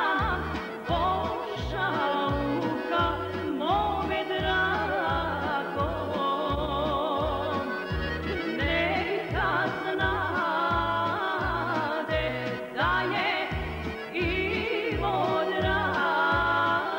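A woman singing a folk song in a wavering, ornamented voice, accompanied by accordion over a steady bass beat.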